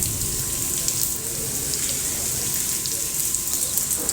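Heavy rain pouring steadily, with many sharp drop ticks scattered through it.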